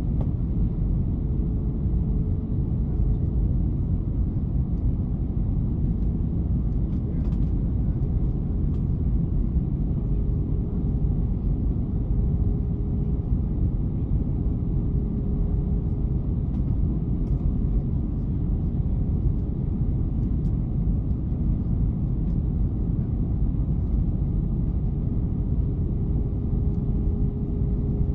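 Airbus A321 cabin noise on approach: the steady low rumble of the engines and rushing air heard from a seat over the wing, with a faint steady hum above it.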